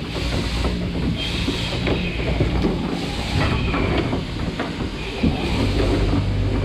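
Shearing machinery running in a shearing shed: a steady mechanical hum and hiss with scattered clicks and knocks, and a deeper hum joining about five and a half seconds in.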